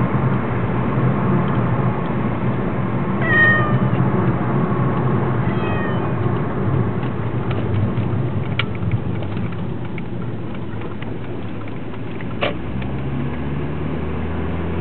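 A domestic cat crying: two short meows, about three and a half and six seconds in, the second fainter, over a steady low rumble. Two sharp clicks come later on.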